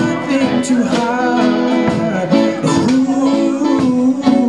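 Live acoustic guitar strumming with a voice singing a melody over it.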